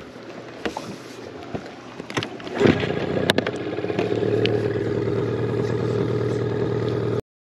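A few knocks and clatter, then a boat's outboard motor comes up loud about two and a half seconds in and settles into steady running. It cuts off abruptly near the end.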